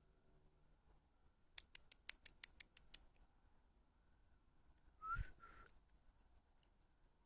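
A quick run of about nine sharp clicks, then a faint two-note whistle from a person calling a cat about five seconds in.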